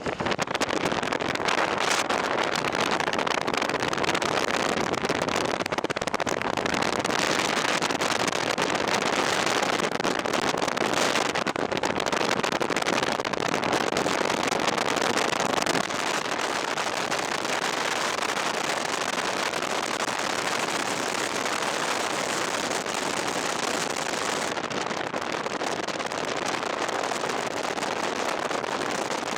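Big hail pelting a moving vehicle's roof and windows in a dense, continuous clatter, easing slightly about halfway through.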